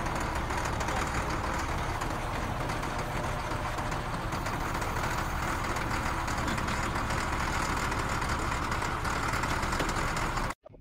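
Motor grader's diesel engine idling steadily.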